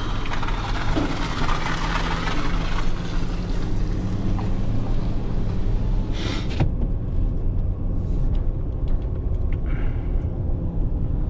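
Truck engine running steadily in a low hum while driving, with a hiss over it for the first few seconds and a short rushing burst about six seconds in.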